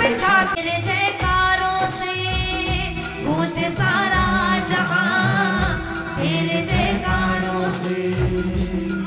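Woman singing a Hindu devotional bhajan to the goddess, amplified over live accompaniment with a steady beat.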